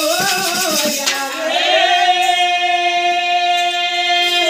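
Folk singing with a frame drum and small percussion striking in the first second, then the singing settles into one long, steady held note for about three seconds.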